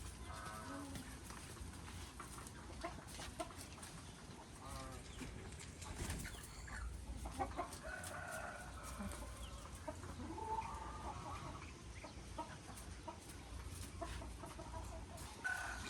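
Chickens clucking on and off, in short repeated calls, over a low steady rumble with a few scattered ticks.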